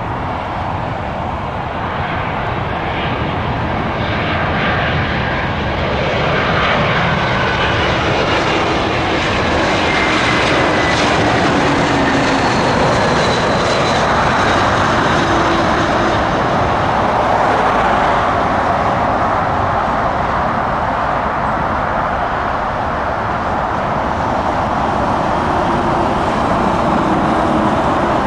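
Jet airliner engines: a loud, steady engine noise that grows over the first ten seconds and then holds, with faint whining tones slowly sliding in pitch.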